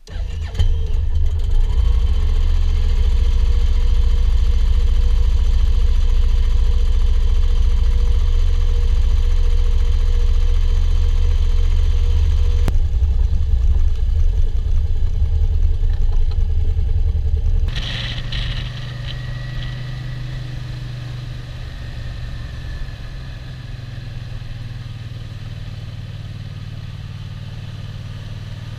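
Yamaha motorcycle engine starting and idling loudly close by. About 18 seconds in, the sound changes to the engine running steadily at cruising speed on the move.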